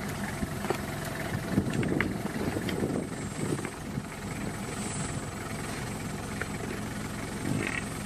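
An engine idling steadily, a low even rumble, with a few faint clicks over it.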